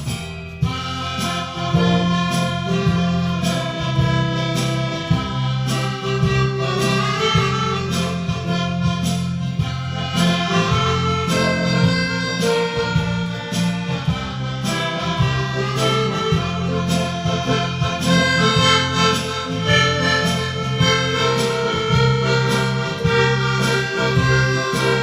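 Background music: instrumental with sustained melody notes over a steady beat.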